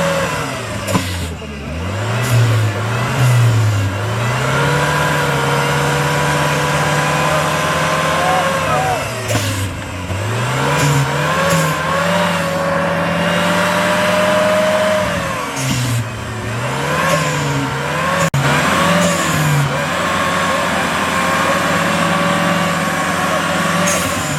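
Off-road 4x4's engine revving up and down under load, its pitch dropping and climbing in quick runs and held steady for several seconds at a time.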